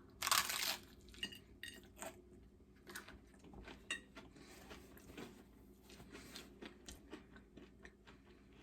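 A person eating a taco up close: a brief loud noisy burst just after the start, then faint chewing with small clicks and taps.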